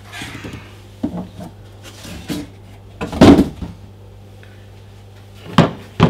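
A cardboard box and a plastic leaf blower housing being handled and set down: a few separate knocks and short scrapes, the loudest about three seconds in and a sharp knock near the end.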